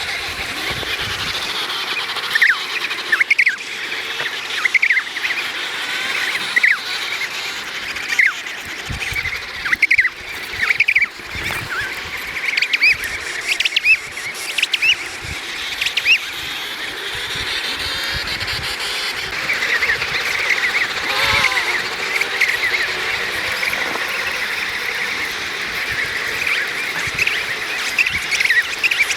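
Emperor penguin chicks chirping: many short, high whistled calls that rise and fall, overlapping over a steady background hiss.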